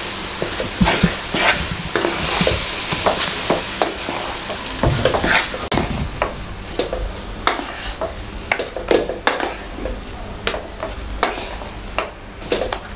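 Wooden spoon stirring and scraping thick besan halwa in a non-stick kadhai, with irregular knocks of the spoon against the pan over the sizzle of the mixture cooking on a low flame. The hiss is stronger in the first half and drops off a little before halfway.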